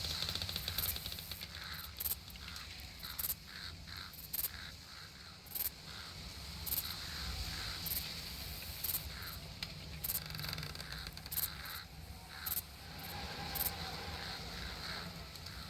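Outdoor nature ambience with bird calls and many short, sharp clicks scattered over a steady background hiss.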